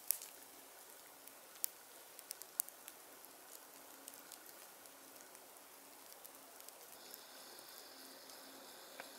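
Faint, scattered pops and clicks of a wood fire crackling, over a quiet hiss of outdoor ambience. The clicks are sparse, a handful in the first few seconds, and the background hiss changes about seven seconds in.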